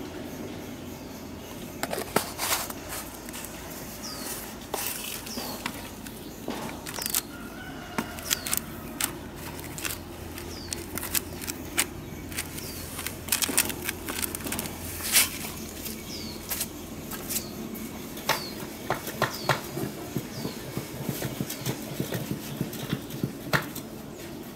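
Dry coconut coir being handled and mixed by hand in a plastic tub, with irregular crackling and rustling. Brief high chirps come and go.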